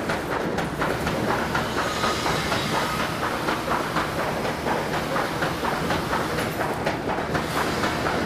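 A.K. Robins flood-style agitated washer and incline cleated belt conveyor running under power: a steady, rapid mechanical clatter from the paddle agitation and conveyor drive, over the hiss of water spraying from the spray bars.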